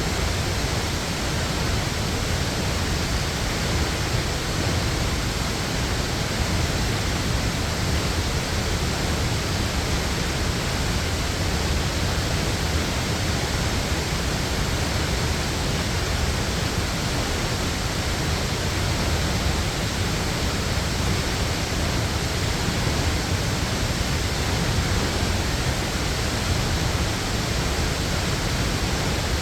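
Waterfall: water falling in a dense, steady rush that does not change.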